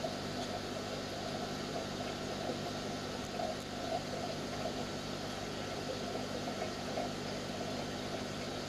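Steady hum of running aquarium equipment with a faint watery hiss, holding level throughout.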